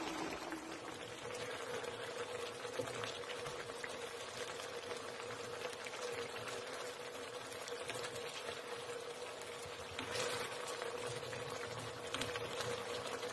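Pork spare ribs simmering in a thick catsup-and-cola sauce, the sauce bubbling and crackling steadily in the pan, with a faint steady hum underneath.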